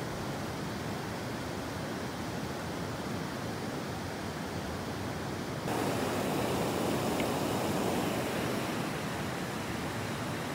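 Shallow river water rushing steadily over a rocky bed. About halfway through it suddenly becomes louder and closer.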